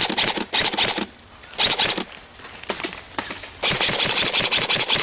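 Airsoft gun firing in rapid clicking bursts, three runs of fire with short pauses between.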